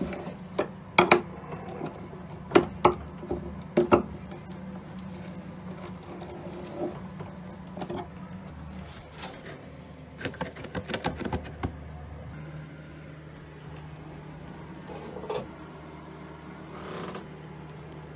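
Irregular sharp knocks and clicks over a steady low hum: several loud ones in the first four seconds and a quick cluster around ten to twelve seconds in.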